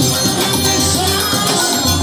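Live forró music from a junina trio playing through a sound system: a steady dance beat with a jingling, shaker-like percussion line over sustained low bass notes.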